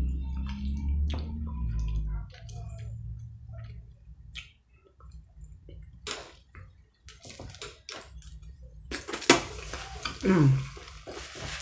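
Close-up eating sounds: a fork clicking and scraping on a metal sheet pan, then wet chewing and slurping of spaghetti, with a sharp wet smack about nine seconds in and a brief hum falling in pitch.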